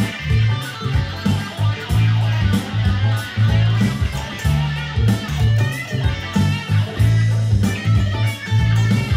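Electric guitar playing a funk groove: rhythmic, with a steady beat and a strong, repeating bass line underneath.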